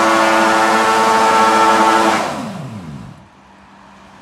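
Suzuki GSF400 inline-four motorcycle engine in a Kawasaki Mule, held at high revs with a steady high-pitched note. About two seconds in the revs fall away, and the sound drops to a faint hum.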